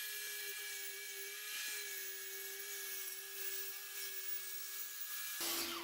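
DeWalt corded circular saw cutting quarter-inch plywood to size: a steady motor whine over a hiss.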